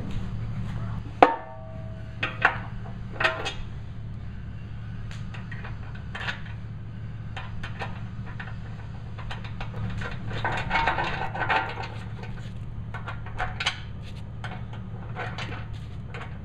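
Steel bumper sections and hand tools knocking and clanking as a modular steel bumper is bolted together. One ringing metal clank comes about a second in, and a rattling cluster of knocks comes around ten to twelve seconds in, over a steady low hum.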